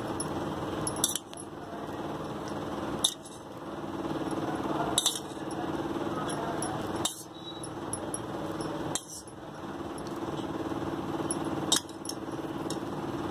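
A steel spoon clinks against the bowl about every two seconds as spoonfuls of curd are dropped onto the marinating chicken, over a steady hum.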